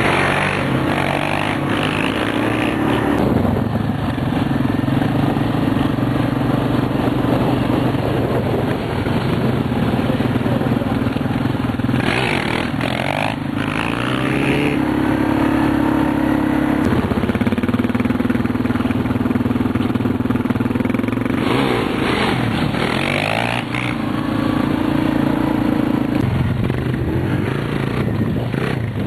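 Quad bike (ATV) engines running and revving, the pitch holding steady for a few seconds at a time and then shifting. There are louder bursts about twelve and twenty-two seconds in.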